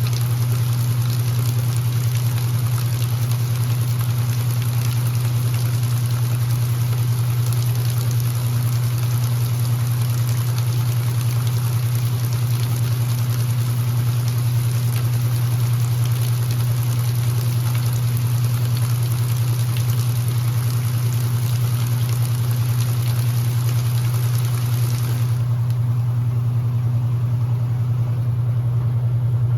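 Electrolux LE06DBD top-load washing machine running mid-cycle: a steady low motor hum with a hiss of water over it. Part of the hiss drops away near the end while the hum carries on.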